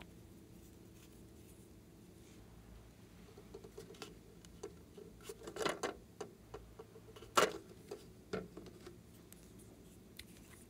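Hands handling small plastic objects: a run of light plastic clicks and taps, with two sharper clicks about five and a half and seven and a half seconds in, over a faint steady hum.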